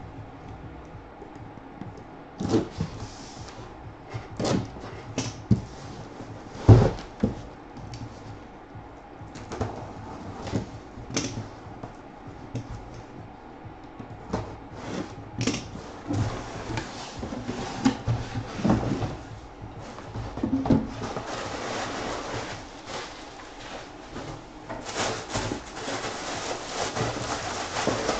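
Cardboard box being handled and opened: a string of knocks and thumps, the loudest about seven seconds in. Over the last several seconds a steady rustle of crinkling paper as the gold wrapping inside is pulled open.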